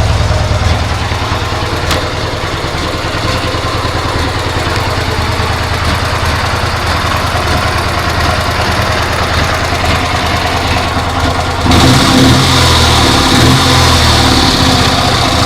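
IZh two-stroke twin motorcycle engine running at idle with a knock that the owner hears in the right cylinder and cannot yet explain. About twelve seconds in it suddenly gets louder and harsher, as from a rise in revs or a closer microphone.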